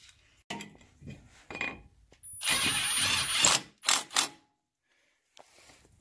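Light metal taps and clicks, then about two seconds in a tool runs for just over a second with a thin high whine as the T30 Torx screw that holds the brake rotor to the wheel hub is driven in, followed by two short bursts.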